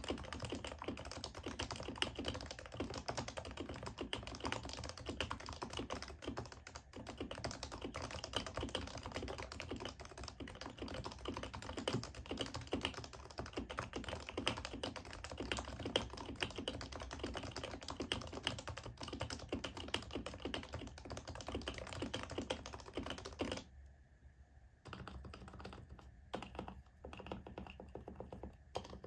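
Typing on an HHKB Pro 2 keyboard with Topre electro-capacitive switches, the domes lubed with Tribosys 3204: a fast, dense run of keystrokes that thins to scattered presses for the last few seconds.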